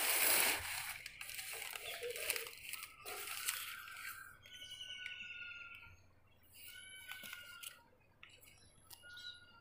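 Crumpled paper packing rustling and crinkling as it is pulled apart by hand, loudest in the first second and fading by about four seconds. After that a bird calls several times in long, level whistled notes.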